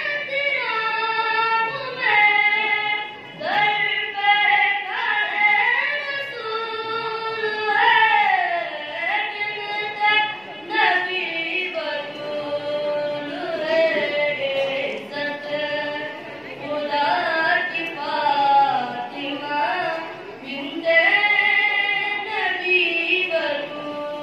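A boy singing a devotional qasida (manqabat) solo into a microphone, in long held notes that glide up and down between phrases.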